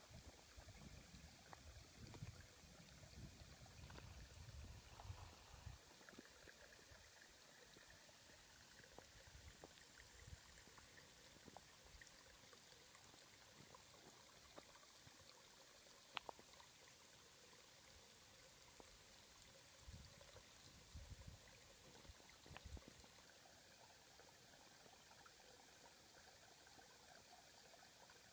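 Near silence: faint outdoor hiss, with a few soft low rumbles early on and again near the end, and a single click partway through.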